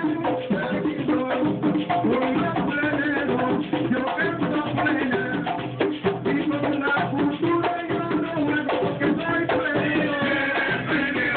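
Live plena: several panderos (hand-held frame drums) beaten in a fast, driving rhythm, with a jingle tambourine rattling along and voices singing over the drums.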